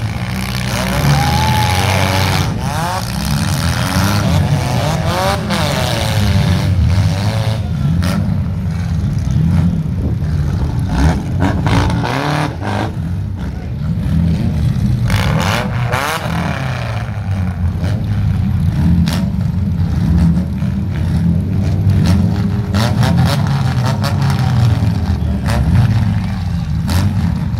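Demolition derby car engines running hard and revving up and down, with repeated sharp crunches and bangs as the cars ram into each other.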